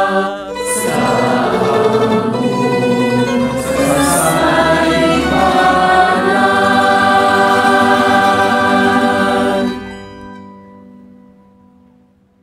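Group of voices singing the closing farewell verse of a Visayan pastores Christmas song. The singing ends on a long held final chord that fades away over the last couple of seconds.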